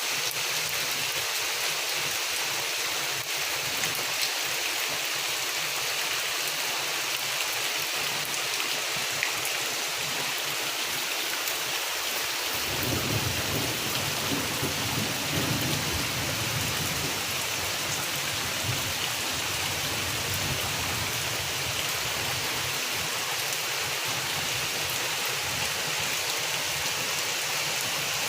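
Steady rain falling, an even hiss of many drops. About halfway through, a low rumble of thunder comes in suddenly and dies away over several seconds.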